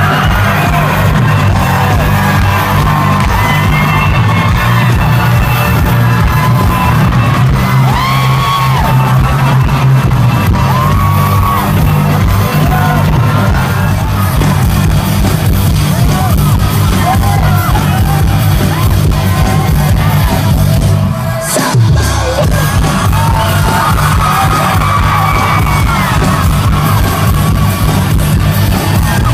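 Live rock band playing loud through a concert PA, picked up on a phone's microphone from within the crowd, with heavy booming bass, a sung vocal line and yells from the audience. The bass drops out for a moment about two-thirds of the way through, then the band comes back in.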